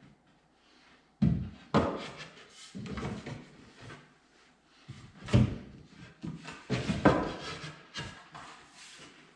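A series of sharp wooden knocks and thuds, several clusters a second or two apart, as trim boards are handled and knocked into place.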